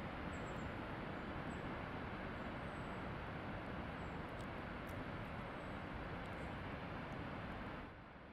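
Steady rush of a tall waterfall's falling water, more than 115 m high, with a few faint high chirps. The level drops shortly before the end.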